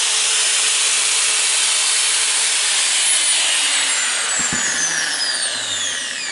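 Makita GA9050 angle grinder running free at full speed with no disc fitted, a loud steady whine from its brushed motor on freshly fitted carbon brushes, running without sparking. A little under 3 seconds in it is switched off and spins down, the whine falling steadily in pitch and fading, with a small knock about halfway through the spin-down.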